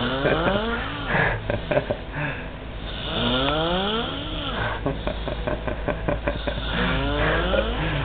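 A man snoring loudly: three long rattling snores, each about a second and a half long with a pitch that rises and then falls, coming every three to four seconds.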